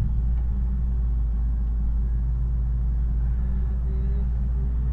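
Heavy diesel engine running steadily, a deep, even rumble with no change in speed.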